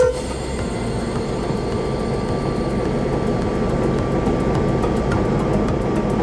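Sulzer diesel engine of a 1300 hp heritage locomotive running steadily, heard from inside its cab. A short sharp knock comes right at the start.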